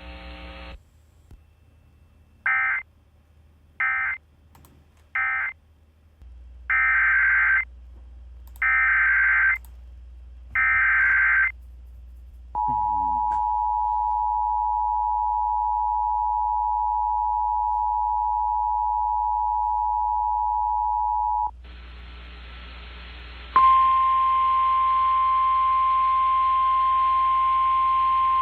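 Emergency Alert System data and alert tones. First come three short end-of-message bursts of buzzy digital data, then three longer SAME header bursts that announce the next alert. Then the two-tone attention signal holds steady for about nine seconds, and after a brief gap of hiss the single steady NOAA Weather Radio warning alarm tone starts near the end.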